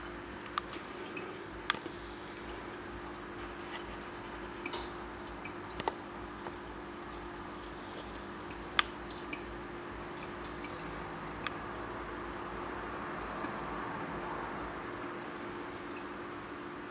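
A cricket chirping in long runs of rapid pulses, over a low steady hum, with a few scattered faint clicks.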